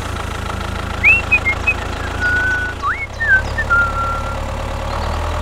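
Tractor engine running steadily with a low drone. A few short whistle-like notes that rise and fall come over it from about a second in to past four seconds.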